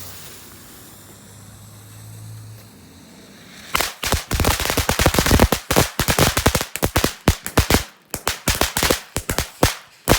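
Small F1 crackling firework fountain: a steady hiss, then from about four seconds in a dense, rapid run of sharp crackling pops that keeps going to the end.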